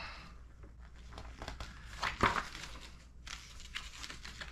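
Paper instruction-manual pages rustling and crinkling as they are leafed through, with one louder page turn about two seconds in.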